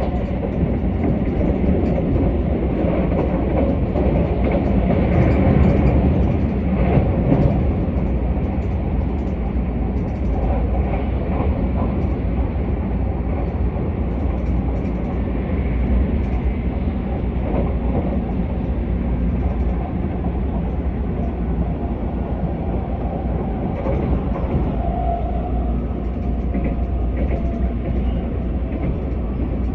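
Keisei AE-series electric train running along the line, heard from inside the passenger cabin: a steady low rumble of wheels on rail with faint scattered clicks from the track.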